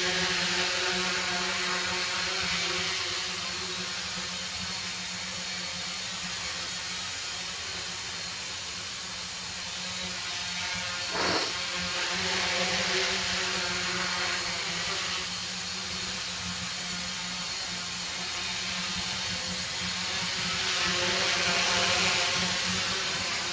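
Tricopter's three electric motors and propellers buzzing steadily as it hovers low, with a brief click about eleven seconds in. The buzz grows louder near the end as the craft comes close.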